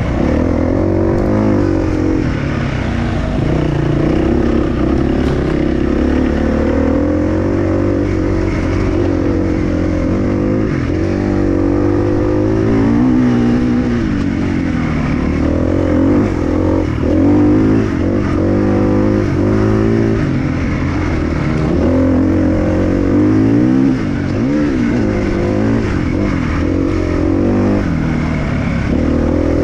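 Enduro motorcycle engine running continuously under load, its pitch rising and falling again and again as the throttle is worked.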